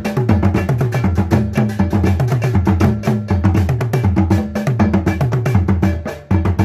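Asante fontomfrom royal drum ensemble playing a fast, dense rhythm of deep pitched drum strokes over sharp, rapid clicks. There is a brief break a little before the end.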